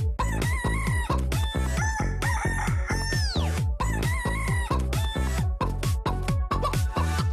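Techno dance track built from chopped chicken clucking samples over a steady, fast kick drum, with a falling electronic sweep about three seconds in.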